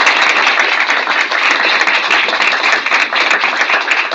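Audience applauding: many hands clapping densely and steadily at the close of a talk.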